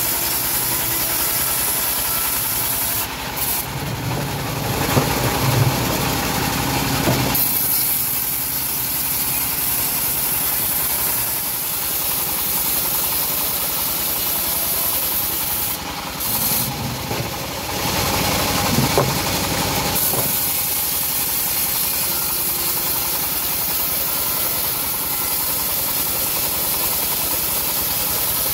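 Homemade band sawmill running with a steady engine drone and hiss while a teak log is pushed through the blade. The sound shifts abruptly twice, about 3 s in and again about 16 s in, each time for around four seconds.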